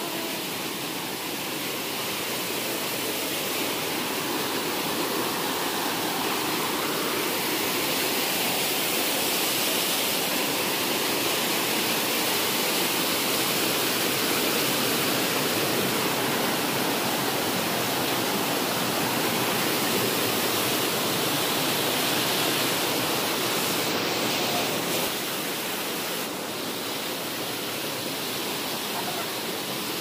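Waterfall water cascading over rocks: a steady rush that grows louder over the first several seconds and eases a little after about twenty-five seconds.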